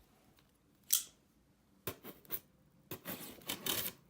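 A cardboard shipping box being opened by hand: a short sharp sound about a second in, a couple of clicks, then rustling of the packaging near the end.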